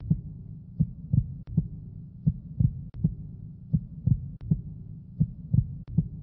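Heartbeat sound effect: dull low thumps in even groups of three, about a second and a half apart, with a thin sharp tick in each group.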